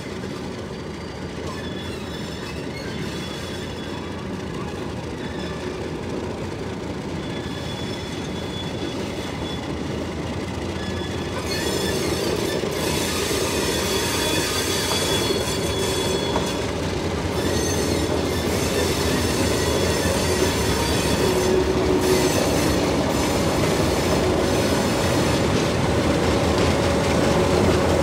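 Alco diesel locomotives 442s1 and 44206 hauling a ballast train, engines running under load and growing steadily louder as they approach and pass close by. From about a third of the way in, a high-pitched squeal from the wheels on the rails rises over the rumble.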